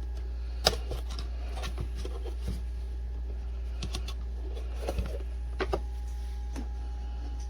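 Scattered light clicks and taps, a dozen or so at uneven spacing, over a steady low hum.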